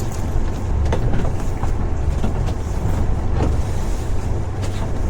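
Steady low rumble aboard a sailboat under way, with a few faint light clicks and knocks.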